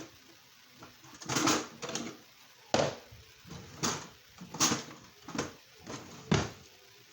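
A series of irregular knocks and clatter, about a dozen short sharp hits.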